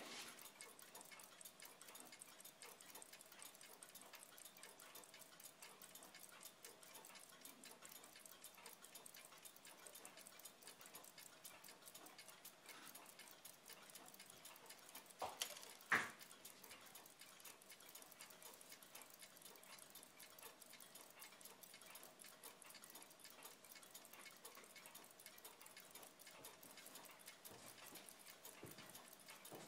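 Faint, fast, even ticking of a restored Moritz Grossmann 3955 pocket watch movement running on its holder. Two knocks about halfway through stand out as the loudest sounds.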